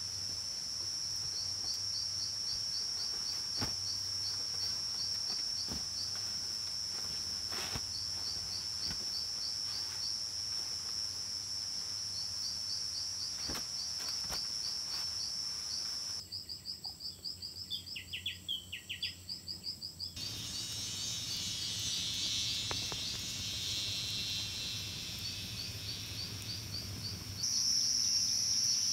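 Forest insects droning steadily at a high pitch, with a fast, repeated chirping running beneath the drone. A bird calls a few times briefly a little past the middle.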